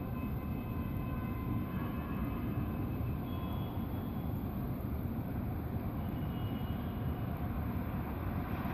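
The unexplained 'strange horn' sound over a city: a steady low rumbling drone with faint, long-held higher tones drifting above it.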